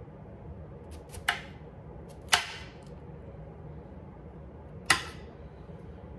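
Chef's knife chopping cauliflower and broccoli florets, the blade knocking sharply on a stone cutting board four times at uneven intervals.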